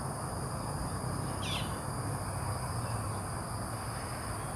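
Outdoor ambience: steady high-pitched insect noise over a low hum, with one short bird chirp about a second and a half in.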